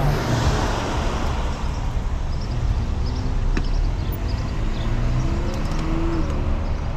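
Steady low road rumble from a moving bicycle with a car following close behind, its engine note rising about five to six seconds in. A single sharp click comes a little past the middle.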